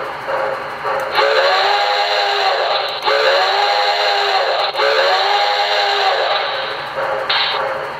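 Simulated steam-locomotive whistle from a QSI Maxx Traxx sound unit: three blasts of about a second and a half each, every one bending up in pitch as it starts and sagging as it ends. They play over a steady steam hiss, with a short puff of hiss near the end.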